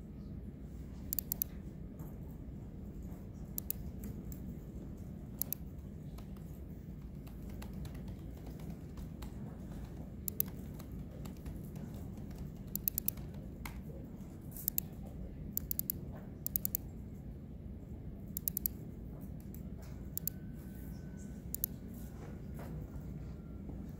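Computer keyboard typing: sharp clicks in small, irregular clusters a second or two apart, over a steady low room hum.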